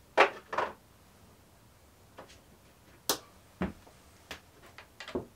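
A handful of separate knocks and clicks of metal engine parts and hand tools being handled while the water pump and accessory brackets come off a small-block V8, the loudest just after the start.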